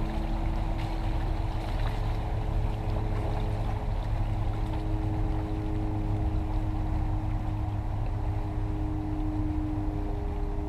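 Motorboat engines running with a steady drone as two boats move away, over a constant low rumble.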